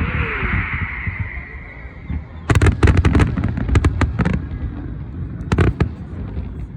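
Fireworks going off: a hissing burst fades over about two seconds, then a rapid run of sharp cracks and bangs, and two more cracks near the end, over a constant low rumble of distant explosions.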